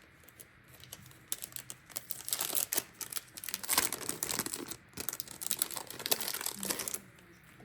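Plastic packaging crinkling and crackling as a bracelet is handled and unwrapped, in quick irregular crackles that stop about a second before the end.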